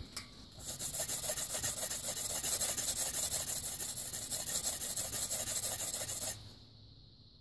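Fine gray silicon-carbide Scotch-Brite pad scrubbed quickly back and forth by hand over an engine block's head gasket deck, a steady rasping hiss, blending down a nick in the sealing surface. The scrubbing stops about six seconds in.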